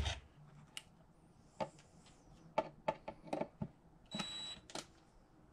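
Irregular clicks and knocks as a deer skull and its antlers are handled against a wooden plaque, with a half-second whir of a DeWalt cordless drill about four seconds in.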